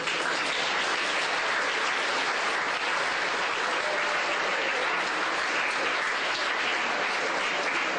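An audience of students applauding steadily.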